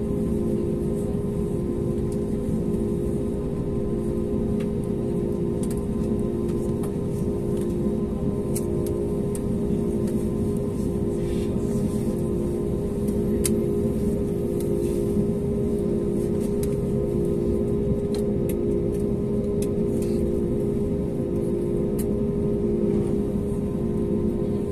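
Steady hum and rumble inside an Airbus A320neo cabin during de-icing, with one tone pulsing slowly and evenly, and scattered sharp ticks as de-icing fluid spray hits the window and fuselage.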